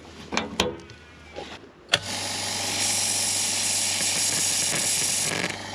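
A machine starts abruptly with a click about two seconds in and runs with a steady hum and hiss for about three seconds, easing off near the end; a few knocks come before it.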